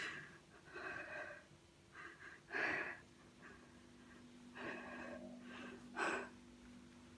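A young woman crying: sobbing breaths and sniffles in short ragged bursts about a second apart.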